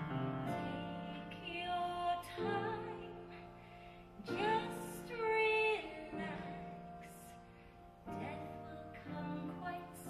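Music: piano accompaniment with a woman singing a slow, wavering melody that swells loudest about halfway through.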